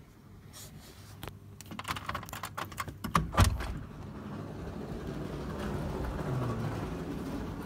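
A run of clicks and knocks, the loudest a thump about three and a half seconds in, as a glass balcony door is unlatched and opened. A steady outdoor hiss follows.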